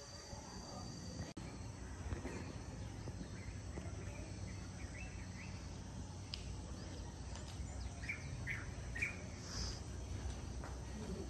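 Outdoor ambience: a steady low rumble with a few short, scattered bird chirps, most of them in the second half.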